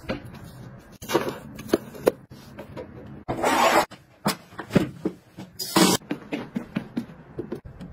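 Household cleaning and handling noises: a run of short knocks and plastic clatter with a few brief brushing rushes, from a broom sweeping a tiled floor and a plastic folding basin being handled.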